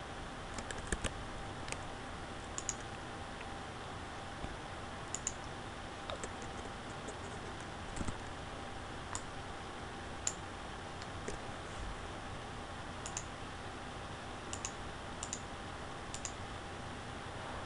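Computer mouse and keyboard clicks, sparse and irregular, about one a second, over a steady microphone hiss with a faint hum.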